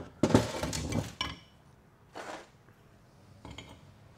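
Metal transmission parts clattering and clinking as they are set down and handled on a metal workbench: one dense clatter with a brief metallic ring in the first second, then two lighter knocks.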